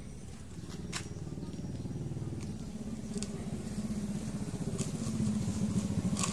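A small engine running with a rapid low putter that grows louder in the second half, with a few light clicks over it.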